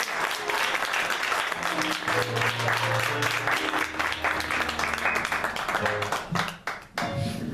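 Congregation applauding, with instrumental music coming in underneath from about two seconds in: low held notes. The applause thins out near the end.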